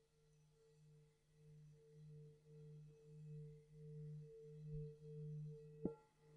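Tibetan singing bowl giving a faint, low steady hum that wavers in regular pulses and slowly swells. About six seconds in, a sharp knock adds a higher ringing tone.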